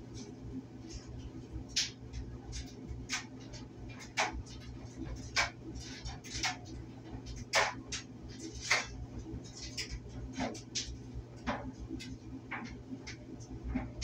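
Electric clothes dryer running: a steady low hum with irregular light clicks and ticks, one or two a second, from the load tumbling in the drum.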